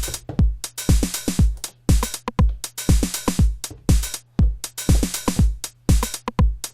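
Sampled Roland TR-909 drum machine loop playing with swing: a deep kick about twice a second, closed and open hi-hats between the kicks, and short rim shot clicks.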